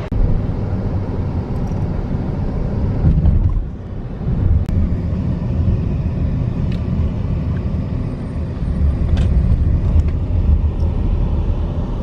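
Low, steady road rumble of a moving vehicle heard from inside, easing briefly about three and a half seconds in, with a few faint ticks.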